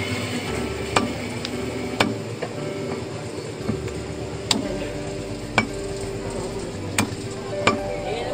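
Heavy butcher's cleaver chopping chunks of beef on a wooden log chopping block: sharp chops at uneven intervals, roughly once a second, over a steady background murmur.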